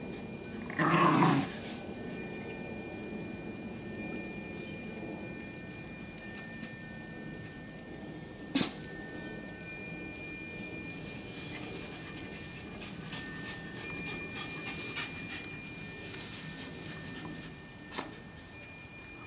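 Wind chimes ringing on and off, a scatter of high, clear metallic notes at a few fixed pitches. Underneath are soft sounds of two small terriers play-wrestling in grass, with a short rustling burst about a second in and two sharp clicks, one in the middle and one near the end.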